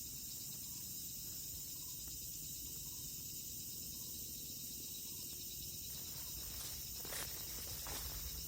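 Steady high-pitched insect chorus with low background rumble; faint rustling and a few soft clicks start about seven seconds in.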